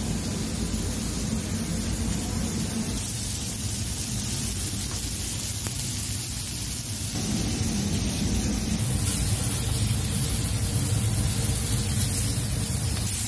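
Steady rushing noise of a commercial kitchen, with a low hum like an extractor hood running and a bright hiss of beef kebab meat and tomatoes sizzling on a flat-top steel griddle. The hiss grows brighter a few seconds in.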